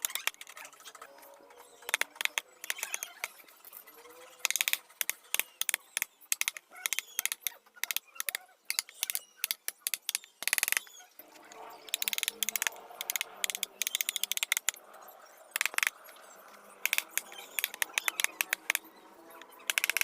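Carving chisel tapped with a mallet into teak, sharp taps coming in quick bursts with short pauses between them.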